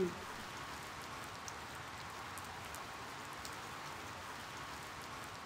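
Steady rain, an even hiss with a few faint ticks of drops.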